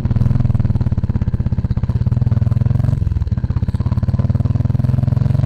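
Royal Enfield Classic 350's single-cylinder engine running, a steady, rapid exhaust beat that briefly dips about three seconds in.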